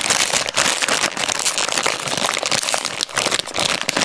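Shiny plastic blind bag crinkling steadily as fingers squeeze and knead it to feel the rubber toy figure inside, a dense run of close-up crackles.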